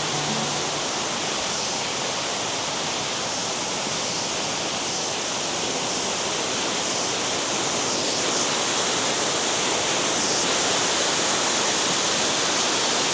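Waterfall close by: a steady, dense rush of falling water.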